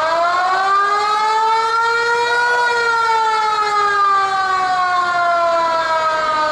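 Baseball stadium siren sounding one long wail that rises for about two and a half seconds, then slowly falls in pitch.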